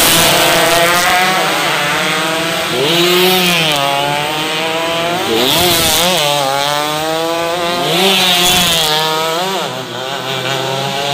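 Small racing underbone motorcycle engines at high revs, their pitch dipping and climbing again several times as the bikes slow for a corner and accelerate out of it.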